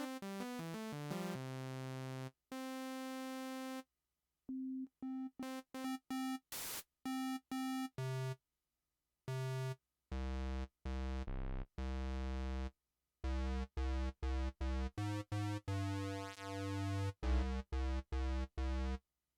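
Synthesizer notes played one or a few at a time with dead silence between them, the pitch and tone changing from note to note. It starts with a quick run of falling notes, then long held notes and short stabs, and later notes with a deep bass.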